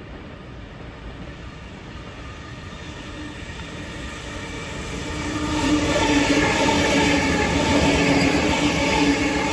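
A double-deck suburban electric train approaching and passing close by at speed. It grows steadily louder, then from about halfway through is a loud rumble of wheels on rail with a steady whine over it.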